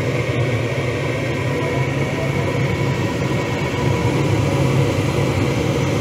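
Old gas furnace running, its burners firing and its newly fitted draft inducer motor turning: a steady low rumble with a faint, even high hum. The furnace is firing again after the inducer was replaced.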